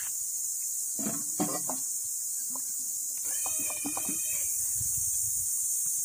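Steady high-pitched hiss of an insect chorus, with a few faint short sounds beneath it about a second in and again around the middle.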